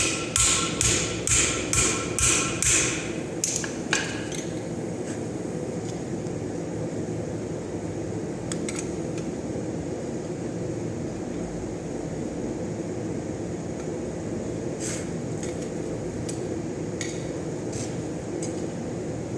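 Hammer blows on steel on an anvil: about nine ringing strikes in quick succession over the first four seconds, then the hammering stops. After that a steady low roar continues, with a few light clicks and taps.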